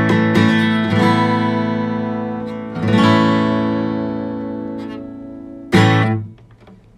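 Acoustic guitar strumming the song's closing chords, each left to ring and fade, then one last sharp strum about six seconds in that is damped almost at once, ending the song.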